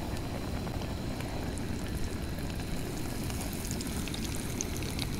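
Breaded catfish frying in hot oil in a small pan on a canister camp stove: a steady sizzle with scattered small pops, more of them in the second half.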